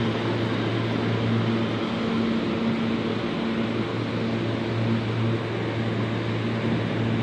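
R160 subway train pulling away along the platform into the tunnel: a steady rushing of wheels on rail under a low hum with a few higher steady tones, which drop out briefly about two seconds in and return.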